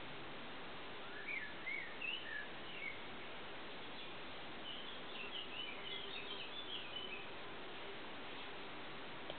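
Small bird chirping faintly over a steady hiss: a few short gliding chirps about a second in, then a quicker twittering run in the middle.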